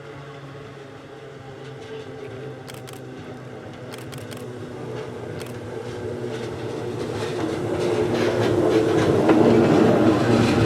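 Hakone Tozan Railway Moha 1 electric car running, the hum of its nose-suspended traction motors growing steadily louder as it comes closer, with a few sharp clicks from about three to five and a half seconds in.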